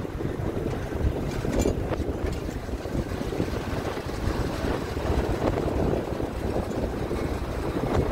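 Wind buffeting the phone's microphone outdoors: a steady, gusting rumble heaviest in the low end, with no speech.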